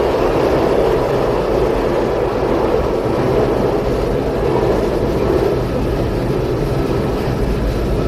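Steady running noise of a moving passenger train heard from inside the carriage: an even rumble and rush of wheels and track.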